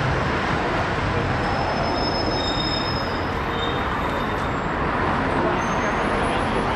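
A steady, even rumbling noise with faint, thin high tones coming and going over it.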